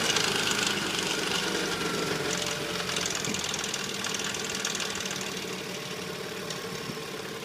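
Nissan Murano's VQ35 3.5-litre V6 idling just after starting, its speed settling as the loudness slowly eases, with a knock from inside the engine. The knock is the sign of a worn engine due for replacement.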